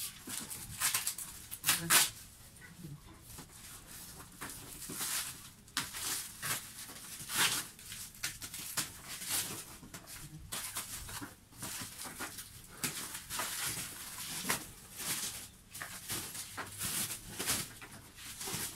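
Cardboard fan box being opened by hand: irregular rustling, scraping and ripping of cardboard and packing, with a louder rip or knock about two seconds in.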